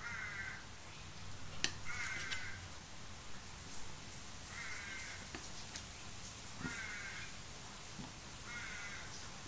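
A crow cawing repeatedly: five calls of about half a second each, spaced a couple of seconds apart. A few light clicks come about two seconds in.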